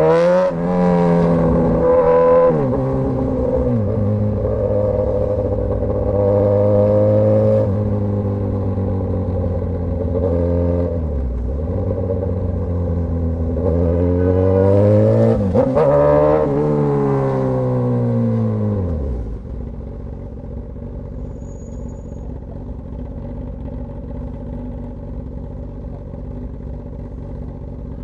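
Straight-piped Suzuki GSX-S1000 inline-four engine pulling through gears and backing off, with a short rev climb past the middle. It then drops to a steady idle for the last third.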